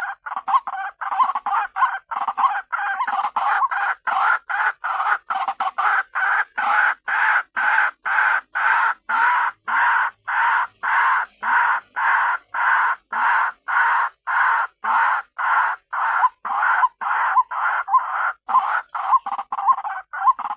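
White-breasted waterhen calling, a continuous run of harsh, evenly repeated notes about two and a half a second. It is the call used as a lure to draw waterhens in.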